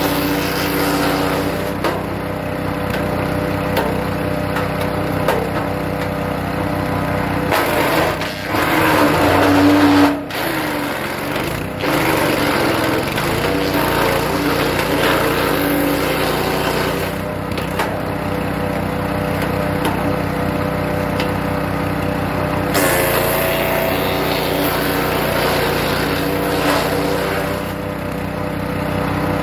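Hecht 6208 petrol wood chipper running steadily, with a louder spell of crunching chipping about eight to twelve seconds in, when birch is fed in and the engine pulls down under the load.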